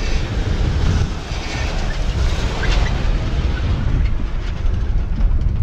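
Ford Ranger pickup truck driving past close by, its engine rumble mixed with wind buffeting the microphone.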